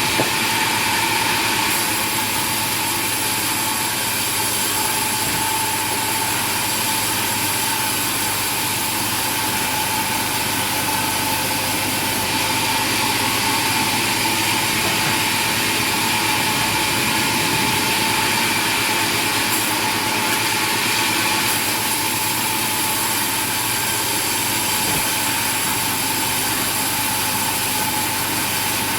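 A machine's motor running steadily, with a constant whine over a broad mechanical noise that holds the same level throughout.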